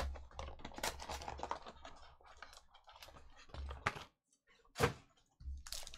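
Cardboard hobby box and foil card packs scraping and rustling as a pack is pulled out of the box by hand, with a few sharp ticks as it is handled and set down about four to five seconds in.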